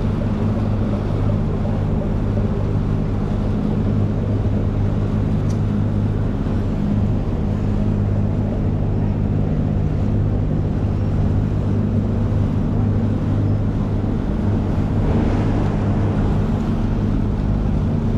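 Outboard motor of a Highfield Sport 390 inflatable boat running steadily under way, with water rushing along the hull. The motor has just had its first service, and the owner finds everything good.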